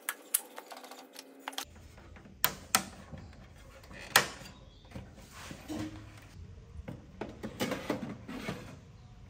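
Sharp clicks and knocks of a sheet-metal computer case and its plastic front panel being handled and fitted together, the loudest about four seconds in. Looser metallic scraping and rattling near the end.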